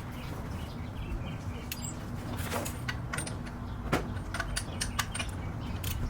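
Scattered sharp metallic clicks and clinks of hand tools working on a wheel hub's lug nuts, the loudest about four seconds in, over a steady low hum.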